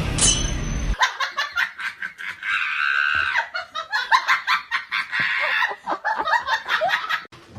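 A person laughing hard: a quick run of high-pitched laughs lasting about six seconds, starting just after music cuts off about a second in.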